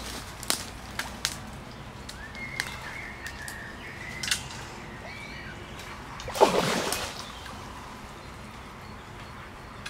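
Water splashing as a hooked carp thrashes at the surface beside the landing net, with one loud splash about two-thirds of the way through and a few sharp clicks before it. A bird calls faintly in the background.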